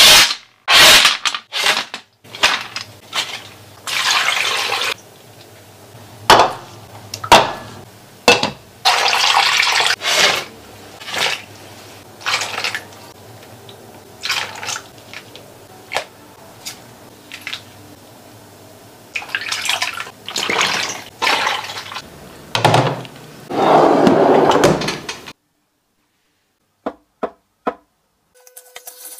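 A run of kitchen food-preparation sounds: sea snail shells clattering as they are tipped into an enamel pan, then pouring and splashing of liquids and sauces in separate bursts, some a second or two long. Near the end the sound drops away, leaving a few short clicks.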